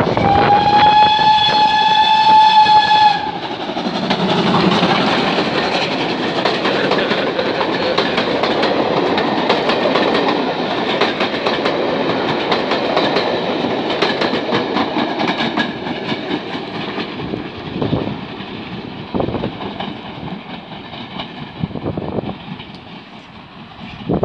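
A steam locomotive's whistle sounds one steady blast of about three seconds. Then the train runs past close by, its wheels clicking rhythmically over the rail joints, and the noise fades away near the end.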